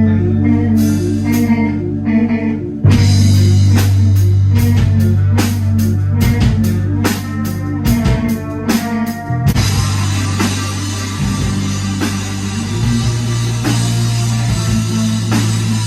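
Rock band playing: bass guitar, electric guitar and drum kit. The drums come in hard about three seconds in, and the music jumps in loudness there.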